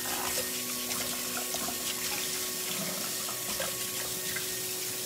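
Kitchen faucet running steadily into the sink as hands are washed under the stream.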